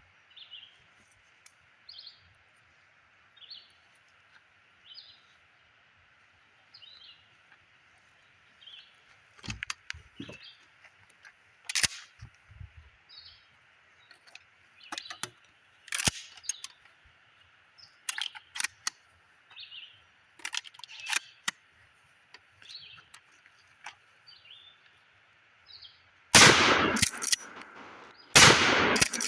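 Two loud 12-gauge pump-action shotgun blasts about two seconds apart near the end, each with a long echoing tail. Before them, birds chirp repeatedly over a steady high hiss, with scattered sharp clicks and knocks in the middle.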